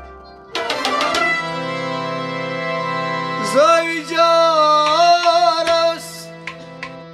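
Kashmiri Sufi music: a harmonium chord sustains with plucked rabab strokes starting about half a second in, and from about three and a half seconds a man sings an ornamented, wavering line that dies away near the end.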